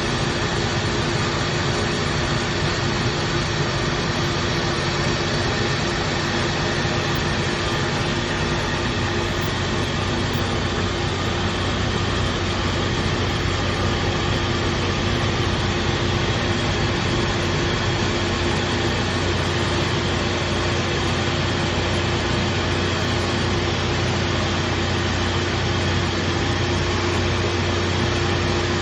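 Coin-operated rice milling machine running steadily, its motor humming evenly with a constant whirring rush as it polishes brown rice into white rice.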